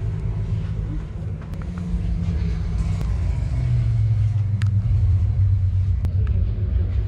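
A steady low rumble with a deep hum that shifts slightly in pitch about halfway through, and a few faint clicks.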